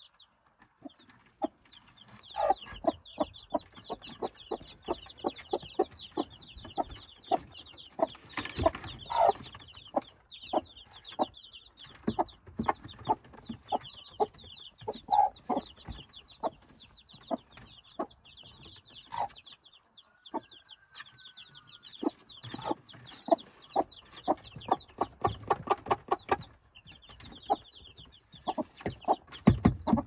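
Day-old chicks peeping continuously in rapid high cheeps, with their mother hen clucking in short low notes among them. The peeping thins out for a few seconds about two-thirds of the way through.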